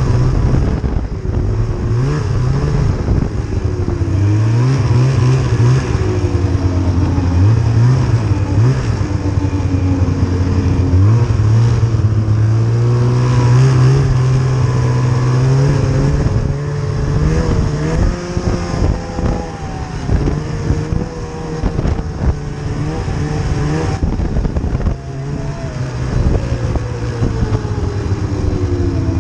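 Snowmobile engine running under load as it is ridden, its pitch rising and falling again and again as the throttle is opened and eased off.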